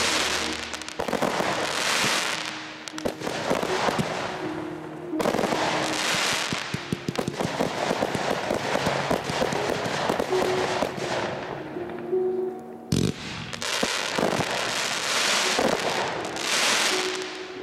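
Aerial fireworks display: shells bursting into dense crackling that swells and fades several times, with a sharp bang about 13 seconds in. Music plays faintly underneath.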